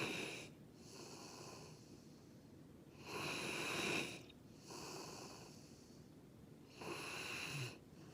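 Labrador–Schnauzer mix dog snoring, each breath a raspy hiss like Darth Vader's breathing. Three louder rasping breaths alternate with quieter ones, about one full breath every three and a half seconds.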